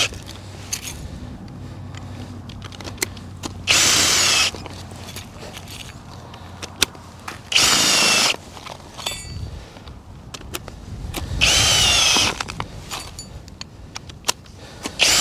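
Ridgid Octane cordless drill spinning screw-in ice anchors into the ice through a drill adapter, in four short bursts about four seconds apart, each under a second long with a whine that bends in pitch as the anchor bites and seats. Short clicks come between the bursts as each anchor is handled and set.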